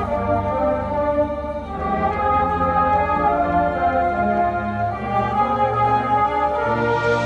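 High school marching band and front ensemble playing slow, sustained chords that change twice. A hissing wash swells in near the end.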